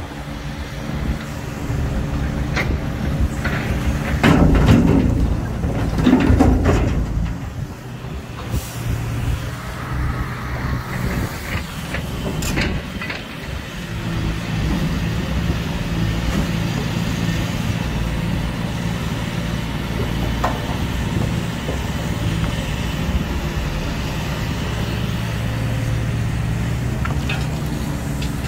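Hitachi Zaxis 470R hydraulic excavator's diesel engine running steadily under load, with two heavy crashing rumbles about four and six seconds in as a bucketload of rock drops into a steel dump-truck bed.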